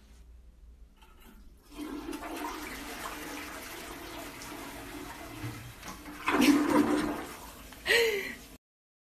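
Toilet flushing: water rushing and swirling in the bowl, starting about two seconds in, with two louder bursts near the end.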